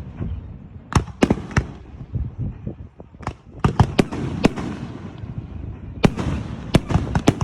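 Fireworks going off: about a dozen sharp bangs at irregular intervals, several in quick clusters, over a continuous low rumble of more distant bursts and their echoes.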